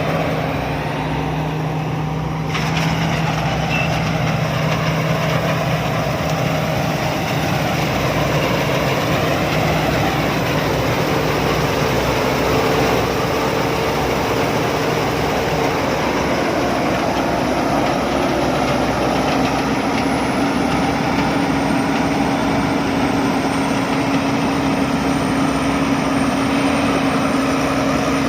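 Rice combine harvester running steadily as it harvests, engine and threshing mechanism going continuously. The engine note shifts in pitch a couple of times, about halfway through and again later.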